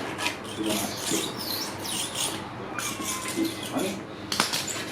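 A series of short, irregular scraping and rubbing strokes as excess cured silicone is cleaned off aquarium glass.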